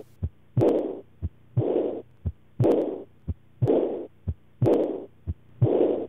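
Recorded heart sounds of aortic regurgitation, about one heartbeat a second. Each beat is a short first heart sound, then a second heart sound that runs straight into a noisy diastolic murmur that starts loud and fades away (decrescendo). This is the sign of blood leaking back from the aorta into the left ventricle.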